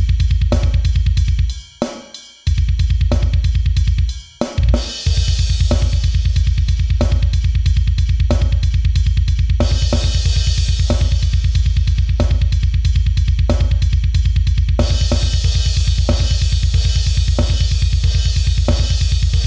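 Metal drum kit playing very fast double-bass-drum sextuplets under snare hits and cymbals. It breaks off in short stops a few times in the first five seconds, then runs on without a break, with heavier cymbal wash from about ten seconds in.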